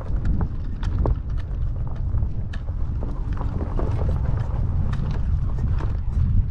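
Irregular footsteps, several a second, over a steady low rumble of wind on the microphone.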